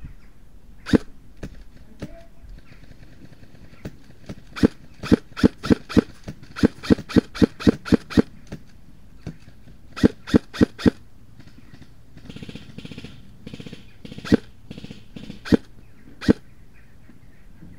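Airsoft rifle firing single shots as sharp pops, irregularly spaced, with quick strings of about three a second in the middle. A brief scuffling noise comes about twelve seconds in.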